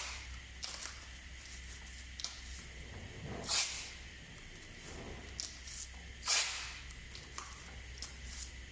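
Short hisses of compressed air from a spray gun being fired to blow air: two bursts about three seconds apart, with small faint clicks between.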